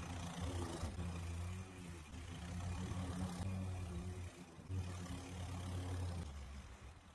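Gas walk-behind lawn mower running under load while cutting overgrown grass, a steady hum whose pitch drops near the end.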